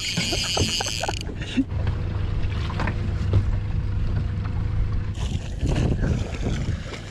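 Wind noise on the microphone, with a brief high whir in the first second. Water splashes around five to six seconds in as a hooked sea bass is scooped into a landing net.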